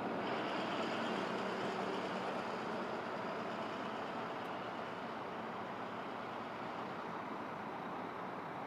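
Jet aircraft engines: a steady rushing noise with a faint whine that fades over the first couple of seconds, the whole growing slowly quieter.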